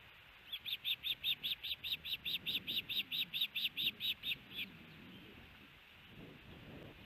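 Adult female osprey giving her alarm call: a rapid, even run of about twenty sharp, high-pitched notes, about five a second, which stops after about four seconds. It is her alert at a person standing below the nest.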